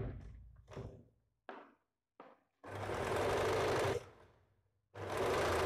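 Electric domestic sewing machine stitching a blouse's side seam in two short runs of about a second each, the first easing up to speed, with a pause between them. Before the runs come a few faint handling sounds as the fabric is positioned under the presser foot.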